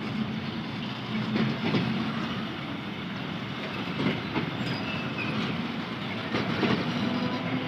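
Freight train of BTO oil tank wagons rolling past very slowly, wheels knocking irregularly over the rail joints under a steady rumble.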